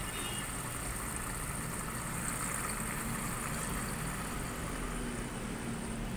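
Electrolux EWF14023 front-loading washing machine running with a steady low hum and a faint hiss.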